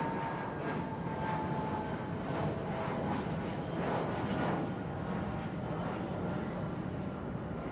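Airport ambience dominated by jet aircraft engine noise: a steady rumble with a thin engine whine that falls slightly in pitch over the first second or two.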